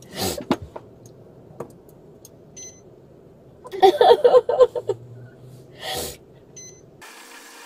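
A woman in the back seat of a police car takes a sharp, noisy breath, makes a short wavering vocal sound a few seconds later, then takes another sharp breath. Near the end a steady hiss comes in.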